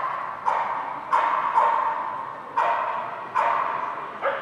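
A dog barking repeatedly, about seven sharp barks at irregular intervals of half a second to a second, each trailing off in an echoing hall.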